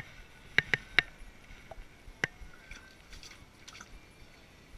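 Sharp clicks and clinks from fishing gear being handled on the ice, four loud ones in the first two and a half seconds, then a few fainter ticks.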